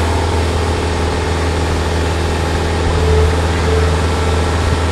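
Hitachi Zaxis 48U mini excavator's diesel engine running steadily while the boom, arm and bucket are worked to lift a load of soil.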